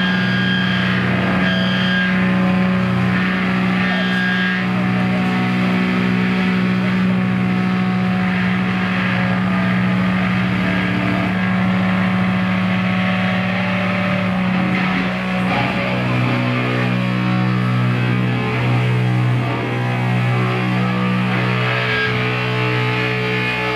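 Distorted electric guitar and bass amplifiers holding loud, steady droning notes; the lower note changes about fifteen seconds in.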